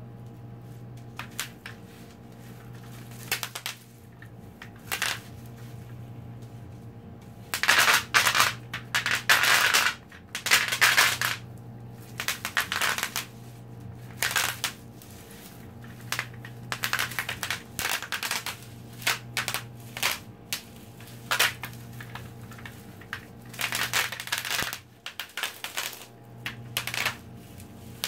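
Bubble wrap popping as a tube is rolled and pressed over the sheet: runs of sharp crackling pops, densest in one long run about a third of the way in, then scattered bursts. A low steady hum lies underneath.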